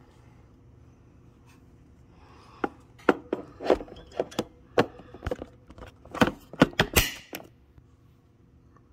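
A run of about a dozen sharp clicks and knocks over some five seconds, starting a few seconds in: the sound of something hard being handled.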